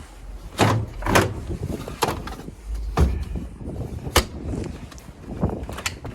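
A series of about six sharp knocks and thuds at irregular intervals, with no creak or steady tone between them.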